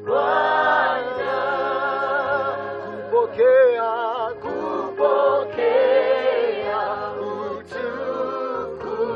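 Gospel worship singing by a man and a woman, their voices wavering on long held notes over steady low accompanying notes that change every second or so.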